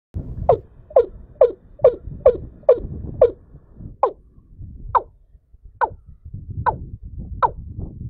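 A bird's call repeated: short downward-sliding notes, about two a second at first, slowing to about one a second after three seconds, over a low rumbling noise. It is the lure call used to draw a male bird to the trap.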